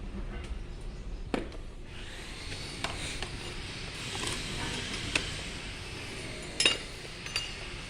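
Scattered light metal clinks and taps of hand tools working on a metal gate, the loudest a double knock about two-thirds of the way in.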